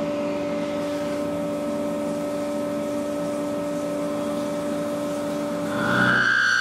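Tormach 1100MX CNC mill running with a steady two-note mechanical hum. About six seconds in, a higher whine joins and the sound gets louder.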